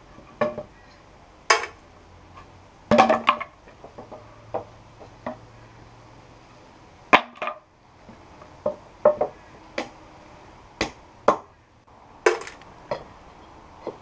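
Claw hammer knocking and prying nails out of old wooden boards: an irregular series of sharp knocks and clacks of steel on wood, with short pauses between.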